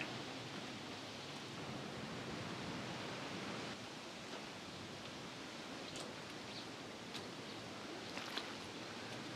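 Steady outdoor background noise, a soft even rush, with a few light clicks and taps in the second half.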